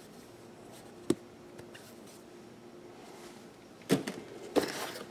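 Handling noise from a microphone pop filter: a sharp click about a second in, then a short rustle and knock near the end as it is set down, over a faint steady hum.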